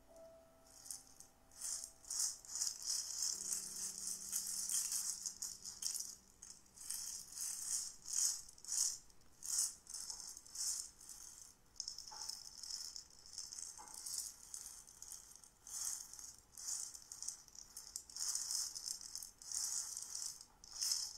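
A rattle shaken in irregular swishing pulses, several a second, as the closing sound of a recorded meditation music track. It is the kind of rattle heard as evoking nature sounds. The last held notes of the music fade out in the first few seconds.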